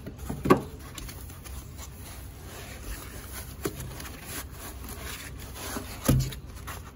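Hands handling a foam packing insert in a cardboard box: foam rubbing and scraping against cardboard, with a knock about half a second in and a louder thump about six seconds in.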